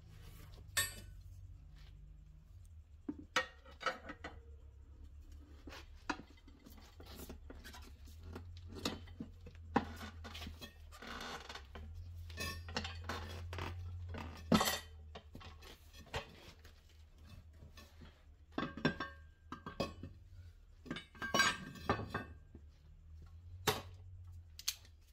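Scattered metal clanks and clinks as a steel tire bar and a vise-grip clamp strike a wheel rim and a manual tire-changing stand while a tire is worked onto the rim, over a low steady hum.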